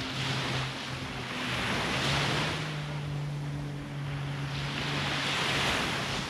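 Sea waves washing onto the shore, the surf swelling and ebbing about three times. A steady low hum runs underneath.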